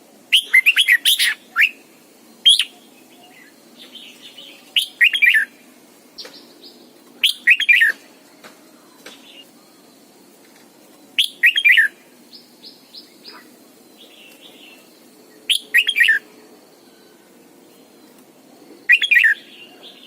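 Red-whiskered bulbul singing: short, loud phrases of quick sweeping notes, repeated every two to four seconds, with fainter chirps between the phrases.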